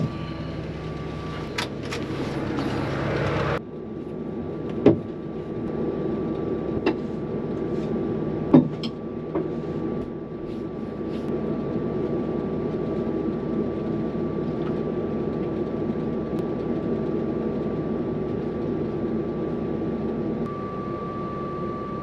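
Harvest machinery running steadily, its engine drone carrying a constant high whine. There are a few sharp knocks about five and about eight and a half seconds in, and the sound shifts abruptly about three and a half seconds in.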